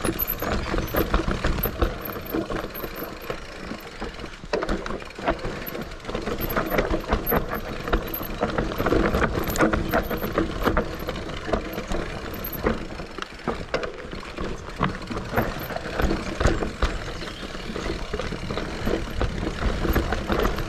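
Santa Cruz Heckler mountain bike riding down a rough dirt trail: steady tyre and rolling noise, with the chain and frame rattling and knocking over bumps throughout.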